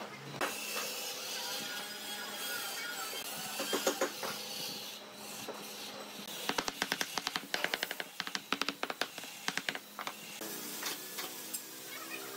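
A quick run of sharp knocks on wood, about four to five a second, going on for some four seconds over low workshop noise.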